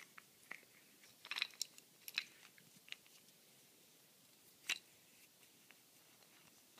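Faint, scattered metallic clicks and scrapes as the threaded rod and nut of a photography double clamp are turned and handled by hand, with the loudest click a little past the middle.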